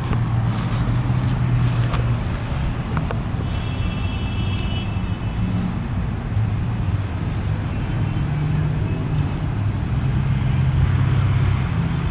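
Road traffic: car engines humming as vehicles pass, the hum swelling and fading over several seconds, with a brief faint high tone about four seconds in.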